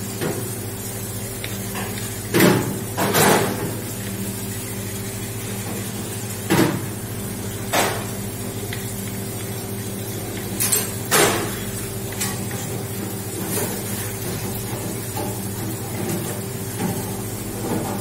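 A chef's knife knocking and scraping against a plastic cutting board, about seven short knocks scattered irregularly, over a steady hum from kitchen equipment.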